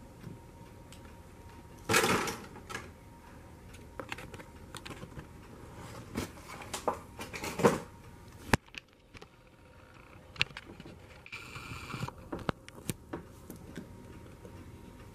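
Clicks and knocks of a diecast model airliner being handled and set on a tabletop, with the loudest knocks about two seconds in and just before eight seconds.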